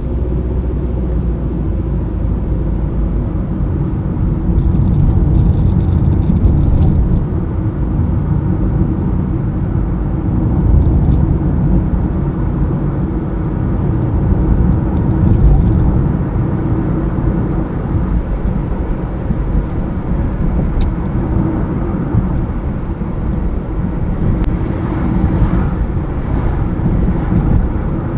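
Car driving along a highway: a steady low rumble of engine and road noise that swells a little and eases off again.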